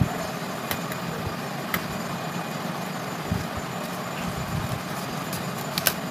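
Hands handling a clip-on wireless microphone and its plastic box with foam insert: a few sharp plastic clicks, the loudest near the end, over a steady low background hum.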